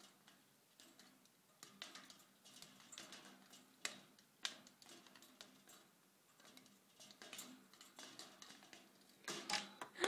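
Budgie pecking and nudging a hanging wooden block toy: faint, scattered clicks and taps, with a few sharper knocks.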